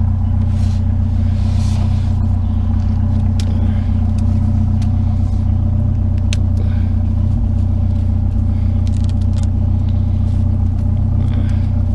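Truck engine idling steadily, a constant low hum, with scattered light clicks and knocks over it.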